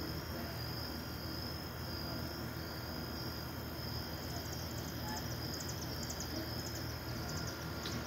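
Crickets trilling steadily in one high, unbroken tone, over a low background rumble. About halfway through, a quick series of short, very high chirps joins in.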